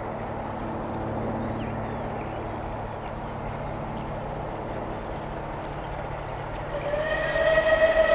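Bulleid Battle of Britain class steam locomotive 34067 Tangmere approaching, heard first as a steady distant rumble. About seven seconds in its steam whistle starts, one long steady note that grows louder.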